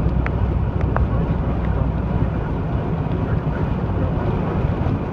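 Steady low drone of a car's engine and road noise heard from inside the cabin while driving, with wind buffeting the microphone.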